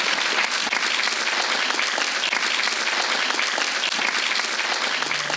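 Audience applauding: dense, steady clapping from a full hall. Music comes in right at the end.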